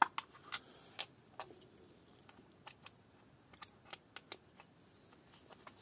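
Scattered sharp clicks and light knocks of hard plastic being handled: a cordless drill taken out of its moulded plastic case and a plastic drill-bit box picked up. The sharpest click comes right at the start, with a few more in the first second, then sparser ones.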